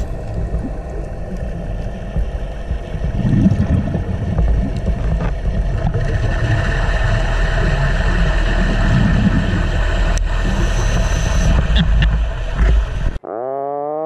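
Underwater ambience: a steady low rumble with hiss and a faint steady hum. It cuts off suddenly about a second before the end, when a pitched tone that glides up and down begins.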